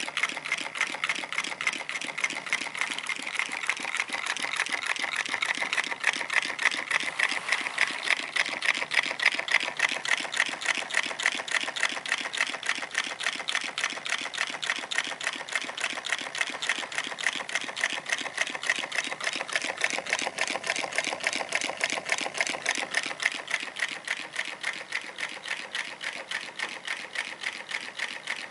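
Homemade walking-beam Stirling engine built from cardboard and drink cans running, its moving parts clicking and rattling in a rapid, even rhythm. The clicking gets a little quieter near the end.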